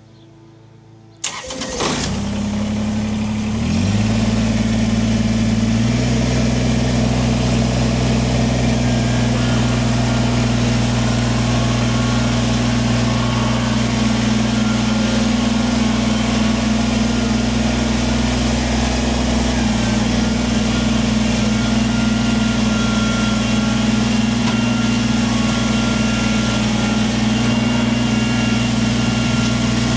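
Kubota tractor's diesel engine starting a little over a second in, then running steadily. Its pitch steps up twice in the first few seconds as it is throttled up.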